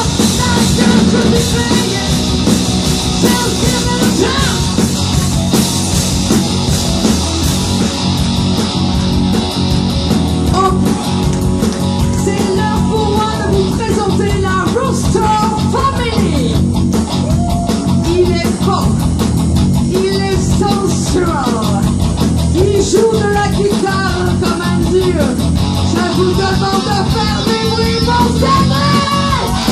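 Live rock band playing loud and steady: electric guitars over drums and bass, with a woman singing lead and a melody line bending above the band from about ten seconds in.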